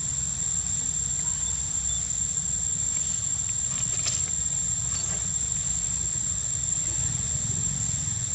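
A steady, high-pitched drone of insects over a constant low rumble of wind on the microphone, with a couple of faint clicks about four seconds in.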